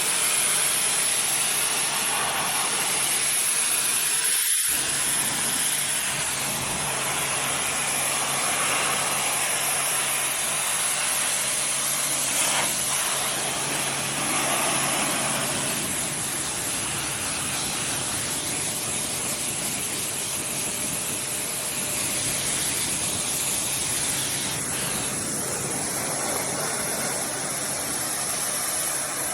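Pressure washer jet spraying, a steady loud hiss of high-pressure water hitting a surface, with a low motor hum underneath. The sound breaks off briefly about four seconds in and changes character near the end.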